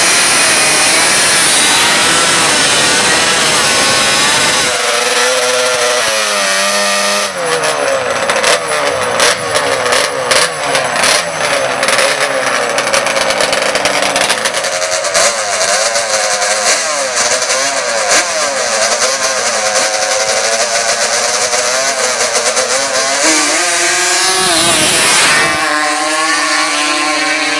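Racing ATV engines revving and accelerating hard, rising and falling in pitch, with a rapid crackle for several seconds and a steep drop in pitch near the end.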